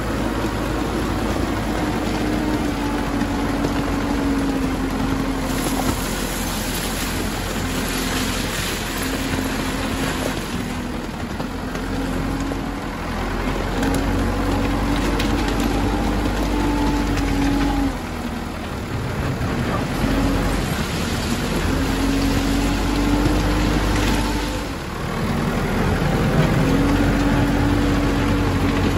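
Diesel engine of a loader running as the machine drives over and spreads crushed stone, its engine note rising and dropping several times, with stone crunching under the tyres throughout.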